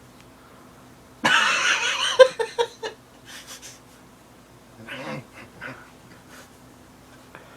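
Cat hissing: a sudden loud hiss about a second in that breaks into a few short puffs, then a second, quieter hiss around five seconds in.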